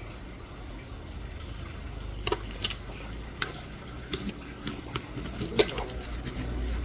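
Small metal nail-care instruments clicking and clinking against each other and a metal tray: a handful of sharp, scattered clicks from about two seconds in, with a low steady hum underneath.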